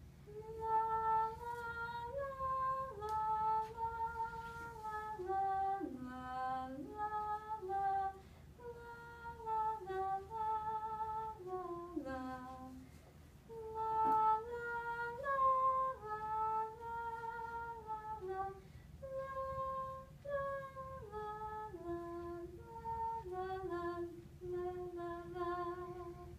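A teenage girl sight-singing a short unaccompanied melody in F major, one steady note after another. She sings two phrases with a brief breath between them, and the melody ends on a held low note.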